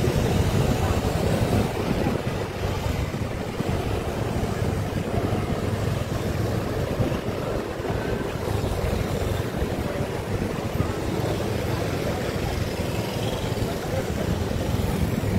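Steady rumble of road traffic heard from a moving vehicle, with wind buffeting the microphone.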